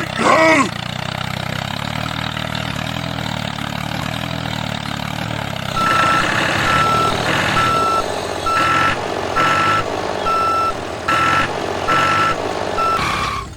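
A vehicle engine running steadily. From about six seconds in, a reversing alarm beeps at one pitch, about once every 0.8 seconds. A brief gliding tone sounds right at the start.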